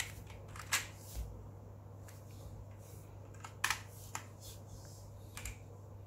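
About five scattered single keystrokes on an HP GK100 mechanical keyboard, each a short sharp clack, with pauses of a second or more between them.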